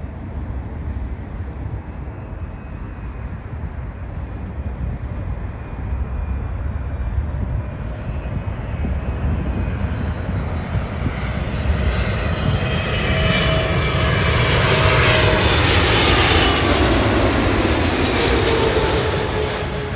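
Jet airliner on final approach passing low overhead: its engine noise builds steadily for about fifteen seconds, peaks, and the engine whine drops in pitch as the plane goes past.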